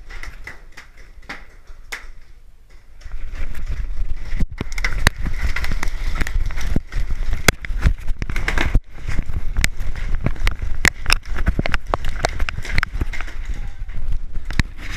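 Many paintball markers firing in an irregular volley of sharp pops. The shots grow denser and louder from about three seconds in, over a steady low rumble.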